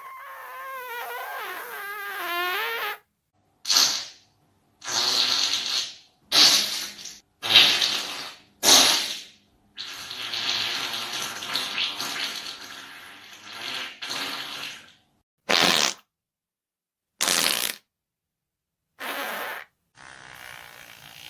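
A string of about ten separate farts spliced together, each cut off abruptly into silence. The first is a long, wavering fart with a clear pitch; the rest are shorter and noisier, one lasting several seconds.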